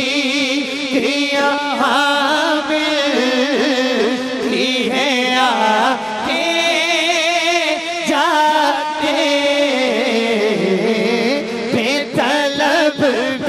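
A man singing a devotional Urdu naat, drawing out long, wavering melismatic notes over a steady low held note in the background.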